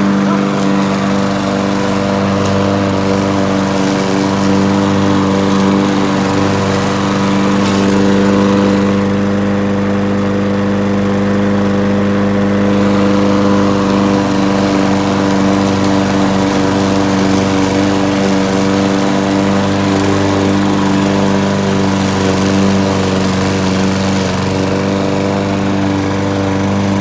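Gas walk-behind lawn mower's small engine running steadily under load as it cuts knee-high grass.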